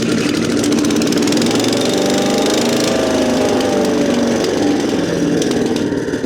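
Chipper shredder's 212cc single-cylinder petrol engine, just caught after pull-starting, running steadily at speed with a slight rise and fall in pitch.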